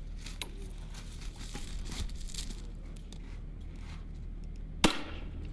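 Light clicks and rustling of rifle handling, then a single sharp gunshot near the end.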